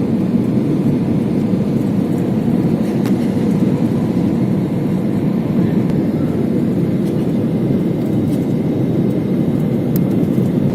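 Airbus A320 airliner noise: a steady low rumble that holds level throughout, without rising or falling.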